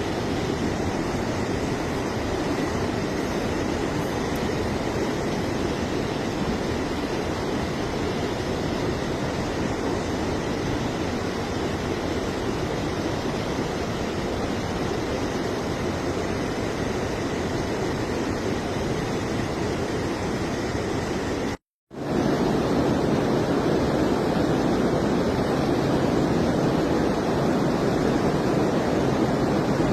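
Steady rush of fast-flowing water, such as a rain-swollen torrent. The sound cuts out completely for a moment about three-quarters of the way through, then comes back slightly louder.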